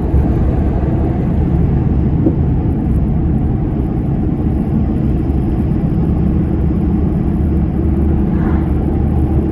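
Ford Ranger pickup driving at a steady speed: a constant low rumble of engine and road noise.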